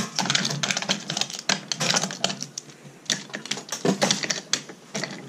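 Wooden toy train cars and track pieces clattering as they are handled and pushed along a wooden railway: a fast, irregular run of clicks and knocks.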